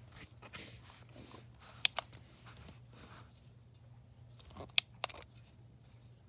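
Smoke alarm being handled: two pairs of sharp plastic clicks, one about two seconds in and one near the end, over a faint steady hum.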